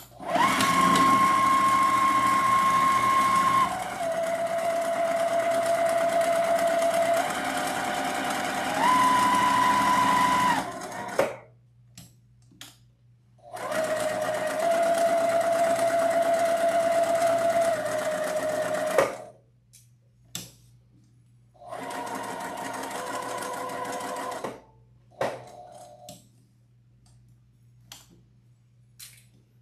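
Electric sewing machine stitching around layered felt in several runs: a long run of about ten seconds whose motor whine steps down in pitch and back up as the speed changes, then shorter runs of about five and three seconds and a brief burst. Quiet gaps between runs hold a few small clicks.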